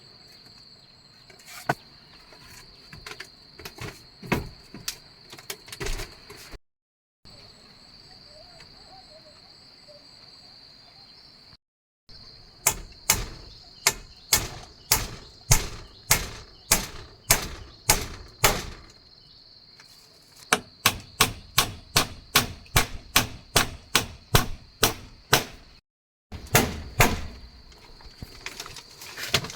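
Repeated sharp strikes of a hand tool on wood, hammering or chopping at about two blows a second in several runs, over a steady high drone of insects such as cicadas or crickets.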